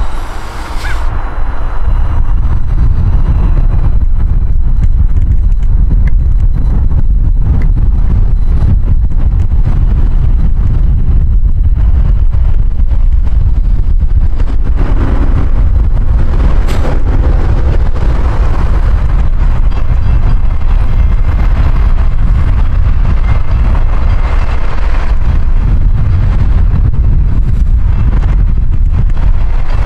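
Wind buffeting the camera microphone: a loud, steady low rumble with no distinct events.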